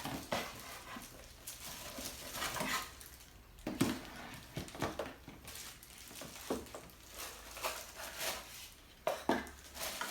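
Irregular rustles, taps and light clinks of a milk frother and its box and plastic packaging being handled and unpacked.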